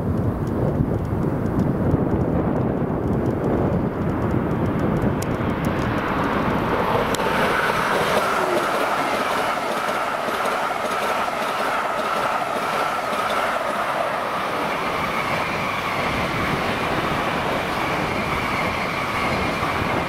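A Siemens Velaro RUS "Sapsan" high-speed electric train passing close at speed. A low rumble gives way, about seven seconds in, to a steady rushing of wheels and air with two high whining tones and rapid clicking of the wheelsets over the rail.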